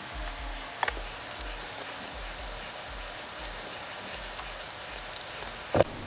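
Small screwdriver and metal parts clicking and tapping as a panel is screwed onto a small amplifier board, with a louder knock near the end. A faint low regular pulsing runs underneath.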